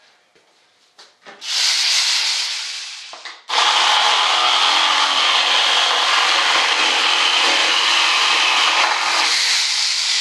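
Electric power tool sanding or grinding, a steady hissing noise. It starts with a short burst that fades, then switches on for a long, steady run about three and a half seconds in.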